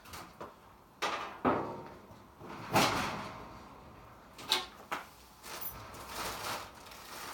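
Metal dryer parts being handled: a series of knocks and clunks, the loudest about three seconds in, then lighter scraping and rattling.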